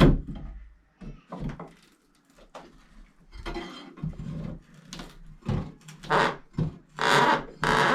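Sledgehammer blows knocking down shelving: irregular heavy strikes, the loudest right at the start, with clattering rattles of the shelf and debris between them.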